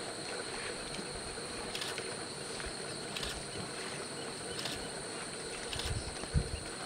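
Steady high-pitched insect chorus over a quiet outdoor hiss, with faint short ticks every second or so and a low thump near the end.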